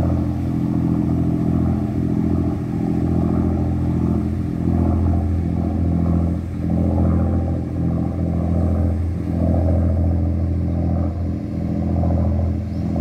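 Boat engine running at a steady speed: a continuous low, droning hum with little change.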